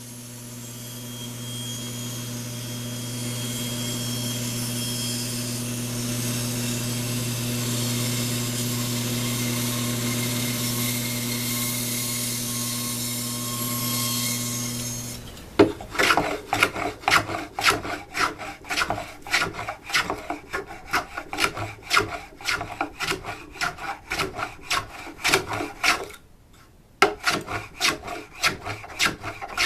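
A bandsaw runs with a steady motor hum while cutting a curve into a wooden scoop handle, and stops about halfway through. Then the wood is worked by hand with quick back-and-forth scraping strokes, pausing briefly near the end.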